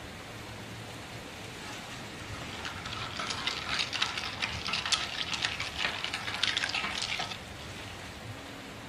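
Ice crackling and clinking in a glass for about four and a half seconds as an iced coffee is made, over steady rain.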